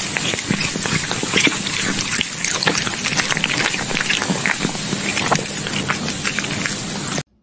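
Chunks of meat sizzling on a charcoal grill, the fat popping and crackling in a dense, steady patter that cuts off suddenly near the end.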